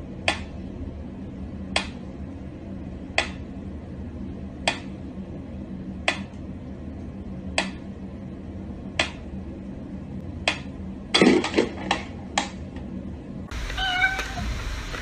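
Mechanical pendulum metronome ticking slowly and evenly, about one sharp tick every second and a half. About eleven seconds in comes a quick run of louder clicks and knocks as the pendulum is disturbed. Then the ticking stops.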